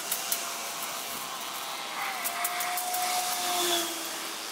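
Leaves and branches rustling as dense brush is pushed through and cleared by hand, with a few sharp clicks. A faint steady hum comes in about two seconds in and fades near the end.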